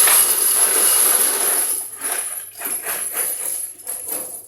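Spent 9mm brass cartridge cases poured into a crucible: a continuous metallic jingling clatter that, after about two seconds, thins into scattered clinks as the last cases drop in.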